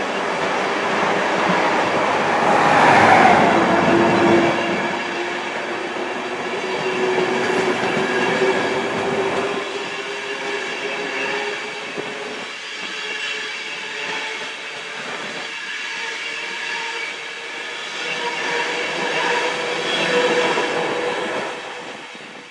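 LNER InterCity 225 train, Mark 4 coaches with a Class 91 electric locomotive at the rear, passing close by. Its wheels roll and click over the rail joints under a steady whining hum. It is loudest about three seconds in and again as the locomotive goes by, then dies away near the end as the train draws off.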